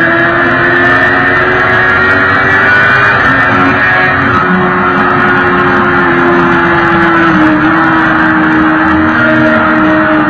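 Sport bike engine running steadily at cruising speed, its drone slowly rising and falling in pitch, picked up by a camera mounted on the bike.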